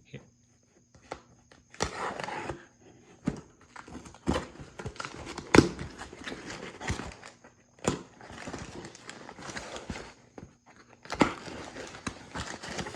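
A shipping box being handled and opened by hand: irregular scraping and rustling of cardboard and packing material, broken by sharp knocks, the loudest about halfway through.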